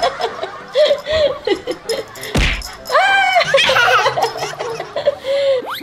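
Giggling laughter in short bursts, with a longer high-pitched laugh about three seconds in.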